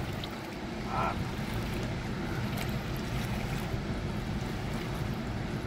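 Steady rushing of river water below a spillway, with some low wind rumble on the microphone. A short higher-pitched sound stands out briefly about a second in.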